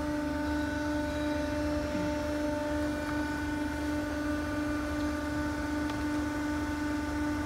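A 30-ton jigsaw puzzle die-cutting press's motor running with a steady, even hum.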